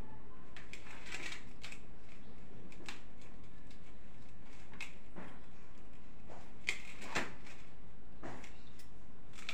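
Scattered light clicks and taps from hands shaping dough balls, with glass bangles clinking now and then, over a steady low hum.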